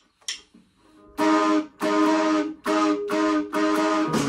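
A sharp click, then about a second in a rock band comes in with guitar chords struck in short, repeated hits with brief breaks between them.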